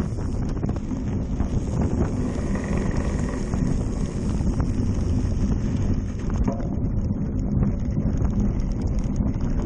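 Wind buffeting the microphone of a handlebar-mounted camera on a cyclocross bike ridden fast over rough frozen ground, with a steady rumble and many small knocks and rattles from the bike.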